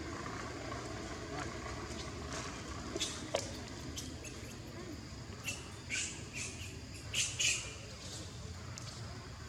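Short, high-pitched squeaks and chirps from a small animal, a few faint ones early and a cluster of louder ones about six to eight seconds in, over a steady low background hum, with a couple of sharp clicks near the middle.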